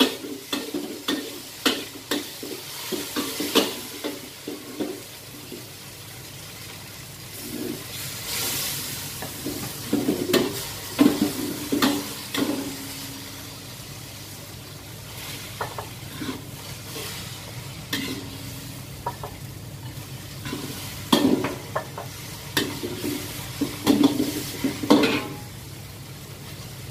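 Metal wok spatula scraping and clanking against a carbon-steel wok as noodles are stir-fried and sizzle, in bursts of strokes with short pauses between, over a steady low hum.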